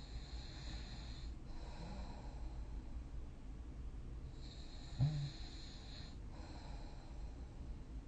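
A sleeping person snoring: slow, airy breaths about every five seconds, with a short, loud snort about five seconds in.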